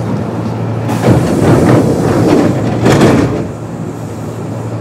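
Kintetsu 8600 series electric train standing at a station: a steady low hum from its onboard equipment, under a loud rush of compressed air from the pneumatic sliding doors opening. The air rush swells twice, about a second in and again about two seconds later.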